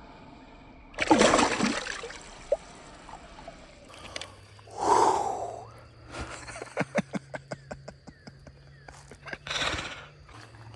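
A loud splash of creek water, then a man's heavy breath out, then a run of quick sharp clicks, about four a second, lasting a few seconds, and another breath near the end.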